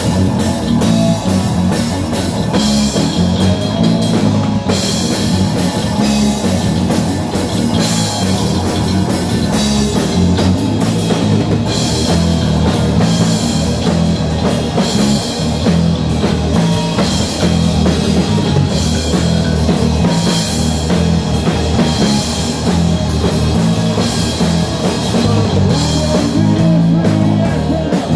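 Live heavy metal band playing loudly: electric guitar, bass guitar and drum kit.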